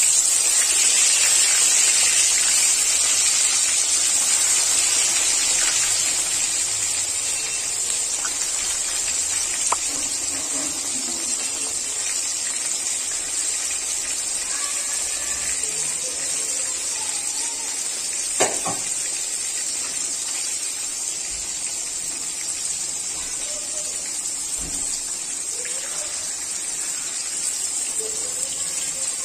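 Turmeric-coated eggplant slices sizzling in hot oil in an iron kadai: a steady, loud hiss, strongest in the first six seconds, then easing slightly. A single sharp tap about 18 seconds in.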